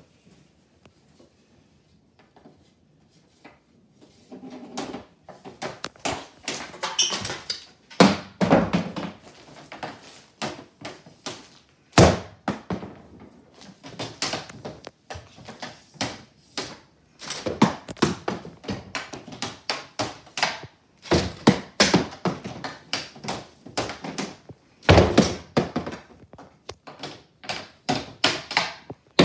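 Hockey stick shooting rubber pucks, one shot after another: a long string of sharp clacks and thuds from stick on puck and pucks striking hard surfaces, with a few much louder knocks among them.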